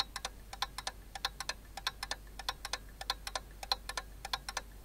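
Clock-ticking sound effect, fast, about six sharp ticks a second.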